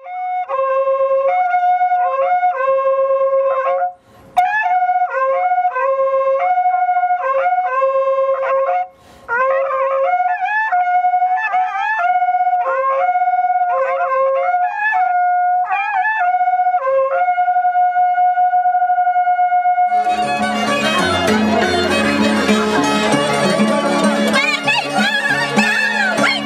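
A single wind instrument plays a slow melody of held notes, ending on a long held note. About twenty seconds in, a fuller band recording with a bass line takes over.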